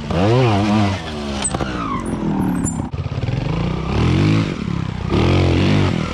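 Beta trials motorcycle engine revving in short throttle blips as the bike climbs a steep rock slope. There are about four bursts, and the pitch rises and falls with each one.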